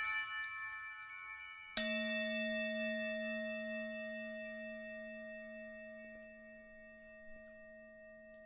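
Logo sting sound effect. Shimmering chime tones fade out, then a single bright struck chime-like hit comes about two seconds in. Its deep ringing tone slowly dies away over several seconds.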